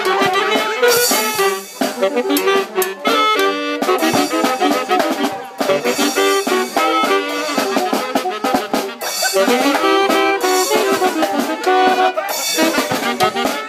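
A live band of brass instruments and a drum kit playing a lively tune, with steady drum and cymbal strokes.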